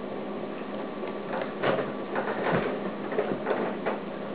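Small screwdriver turning tiny screws into a Hitec HS-55 micro servo's plastic case, a run of short irregular scratchy clicks as the case screws are tightened.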